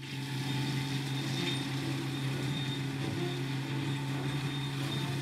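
Kubota tractor's diesel engine running at a steady, unchanging speed while mulching.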